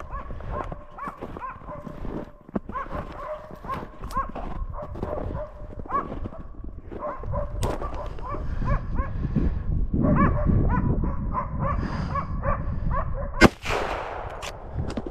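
Hunting laikas barking over and over, baying a moose. Near the end a single loud rifle shot cracks out and echoes.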